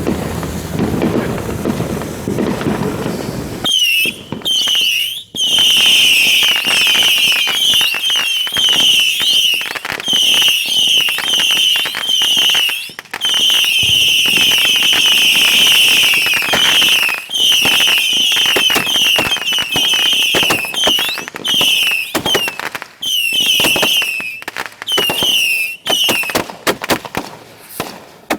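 Fireworks finale fired close by: after about four seconds of low rushing noise, dense volleys of short whistles that drop in pitch, mixed with rapid pops and bangs, with a few brief breaks between volleys.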